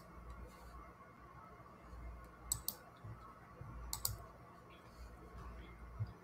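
Sharp clicks in two close pairs, about two and a half seconds in and again about four seconds in, over a faint low rumble in a quiet room.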